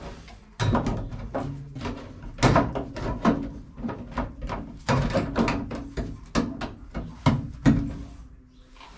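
Irregular knocking and clattering of a steel repair panel being handled and knocked into place against the car's toeboard for a test fit. It starts about half a second in and dies away near the end.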